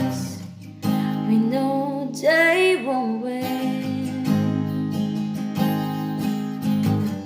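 Acoustic guitar strumming chords, with a singing voice holding a short wavering phrase about two seconds in.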